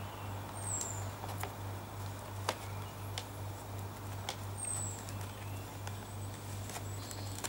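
Scattered light clicks and taps from handling the foam plane parts while the motor wires are fed through the wing, with two short, high, falling chirps about four seconds apart over a steady low hum.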